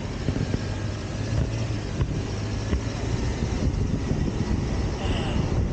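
A motor vehicle driving along: a steady low engine hum under road and wind noise, with a few brief knocks.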